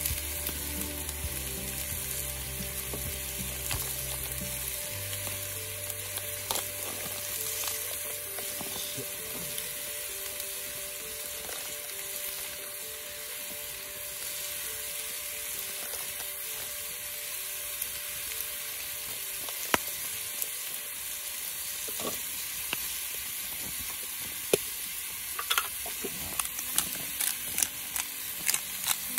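Beef tendon sizzling in a skillet over a wood fire: a steady frying sizzle, with a run of sharp clicks near the end.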